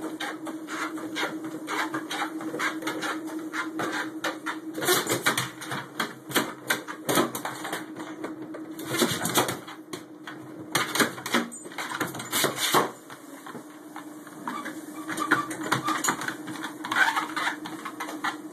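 Pit bull walking on a running treadmill: a steady motor hum with the dog's claws clicking on the belt in a quick, even rhythm. Louder irregular knocks and scuffs come between about five and thirteen seconds in.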